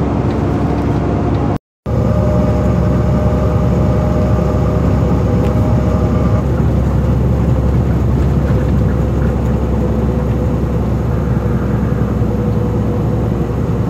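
Steady engine and road rumble heard from inside a truck cab cruising on the highway. The sound cuts out completely for a moment about a second and a half in.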